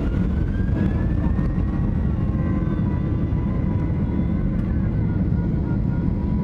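Boeing 737-800's CFM56 jet engines heard from inside the cabin over the wing: a steady heavy rumble with a thin whine that rises in pitch over the first couple of seconds and then holds, as the airliner rolls along the runway on its takeoff run.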